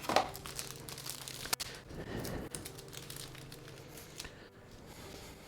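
Soft rustling and crinkling as sheets of phyllo pastry and their wrapping are handled, with one sharp click about a second and a half in, over a faint steady hum.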